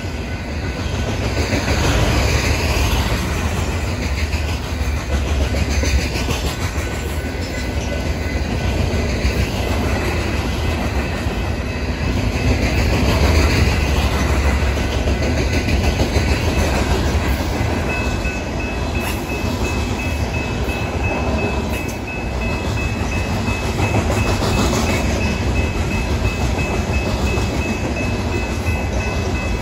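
Freight train of loaded open-top hopper cars rolling past close by at steady speed: a continuous loud rumble of wheels on the rails. A faint high steady whine joins about two-thirds of the way through.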